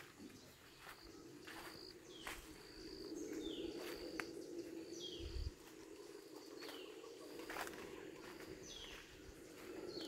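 Rainforest ambience: a bird repeats a short high call that slides down in pitch every second or so over a low, steady drone, with footsteps on the leaf-litter trail and a dull thump about five seconds in.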